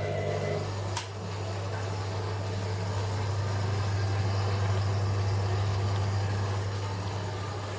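Whirlpool WWDC 7210/1 washing machine running: a steady low hum with a sharp click about a second in, growing slightly louder toward the middle and then easing off.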